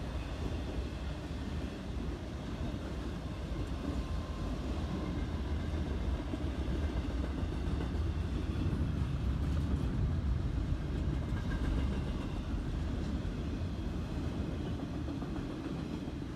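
Norfolk Southern intermodal freight cars rolling past, trailer flatcars giving way to double-stack container cars: a steady low rumble of steel wheels on rail.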